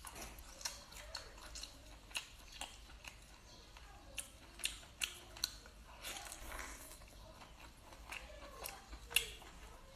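Chewing, with scattered short, sharp clicks and cracks of Boston lobster shell as the meat is pulled apart by hand.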